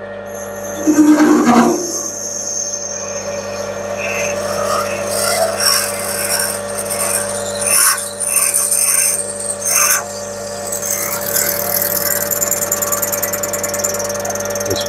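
A metal lathe runs with a steady hum while a 12 mm twist drill is fed from the tailstock into the spinning axle pump body. The cutting gives an uneven high hiss and chatter, an interrupted cut as the drill breaks into the cross holes for the valve box fittings. There is a brief loud squeak about a second in.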